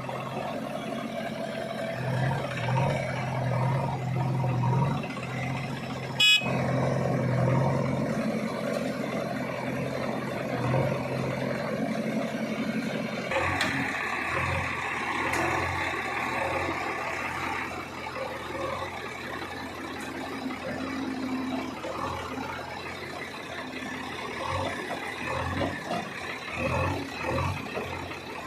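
Heavy diesel machinery engine running with uneven rises and falls in load. There is a sharp click about six seconds in, and a horn-like higher tone lasting about four seconds starting around the middle.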